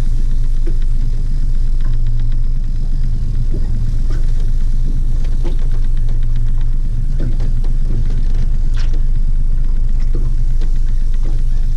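Outboard motor running steadily at trolling speed, a constant low hum, with scattered light clicks and knocks over it.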